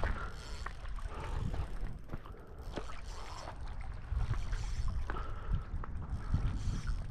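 Wind rumbling on the microphone over water lapping, with a few short light clicks and splashes.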